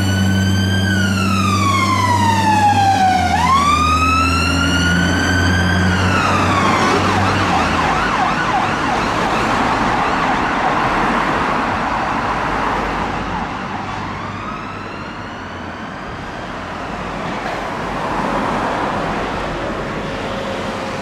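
Dennis Sabre fire engine's electronic siren sounding as it passes close with its engine running: slow wailing sweeps that rise and fall. About seven seconds in the siren switches to a fast warbling yelp, and then fades into the distance against traffic noise.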